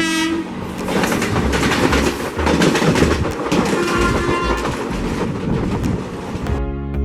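WDM3D ALCO diesel locomotive honking its horn in a short blast, then a second short horn note about four seconds in, over a loud steady rush of train noise. Music comes in near the end.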